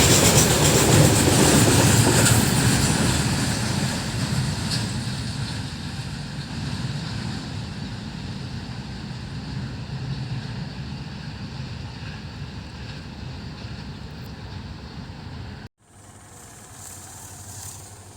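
A train running past on the rails, its rumble and rattle fading steadily as it moves away. Near the end it cuts off abruptly to a much quieter background.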